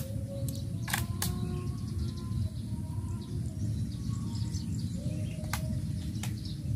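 Birds calling and chirping in short, faint notes over a steady low outdoor rumble. A few sharp clicks come about a second in and again near the end.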